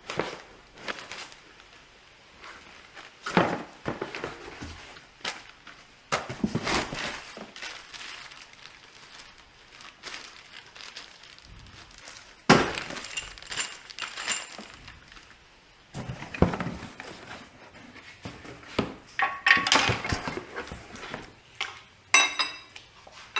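Cardboard box and packaging being handled and torn while parts are unpacked, heard as irregular rustles and knocks. A sharp ringing clink comes about halfway through, and a quick run of clicks near the end.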